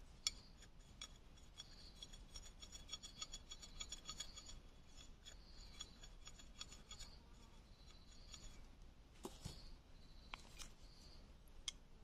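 Knife blade scraping and shaving a thin green bamboo stick: quiet, quick scraping ticks, with one sharper click just after the start.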